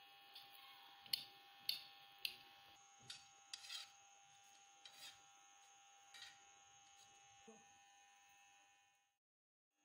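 Faint steady hum with a few sharp clicks and taps of a metal utensil and burger buns against a flat iron griddle; the sound fades out near the end.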